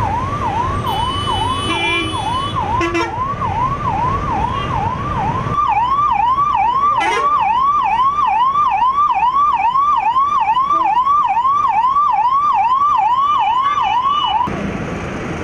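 Ambulance siren sounding in fast repeated up-and-down sweeps, about two and a half a second, over a rumble of road traffic; it gets louder about five seconds in and cuts off suddenly near the end.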